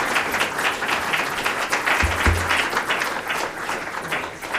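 Audience applauding at the end of a speech, slowly thinning out, with two low thumps about two seconds in.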